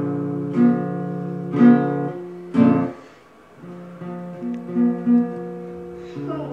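Acoustic guitar strummed in slow chords about once a second, each chord left to ring. About halfway through it goes quieter, with single picked notes.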